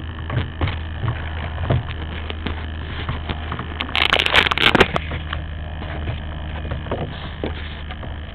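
Handling noise on the glider's small onboard camera microphone: fingers tapping and rubbing on the camera and the foam fuselage, with a loud scrape about four seconds in as a hand passes over the camera. A steady low hum runs underneath.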